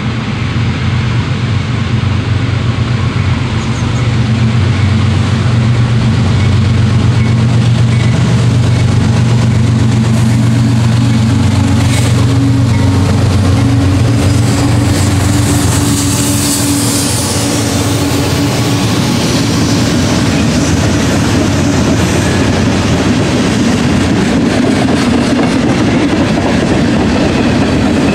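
CSX freight train passing close by. A deep, steady diesel drone from its three GE locomotives (two ES40DC units and a CW44AC) builds over the first few seconds. From about two-thirds of the way through, the rolling clatter of freight cars' wheels on the rails takes over.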